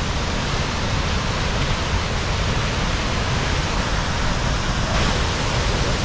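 Corlieu Falls, an 80-foot cascading waterfall, pouring: a steady, even rush of falling water.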